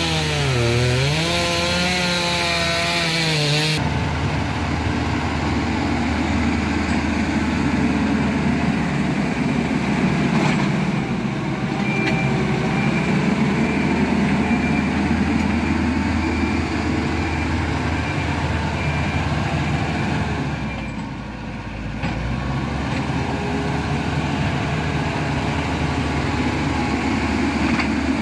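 Diesel engines of heavy road-building machinery working. The engine pitch rises and falls in the first few seconds, then settles into a steady running drone. A faint repeating beep, typical of a reversing alarm, sounds for several seconds around the middle.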